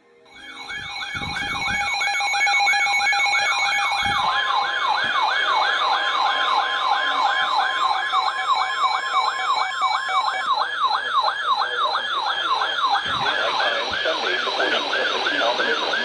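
NOAA weather radio receivers sounding their flood-warning alarm: a loud siren-like warble, sweeping about three times a second. A steady high tone joins it about four seconds in.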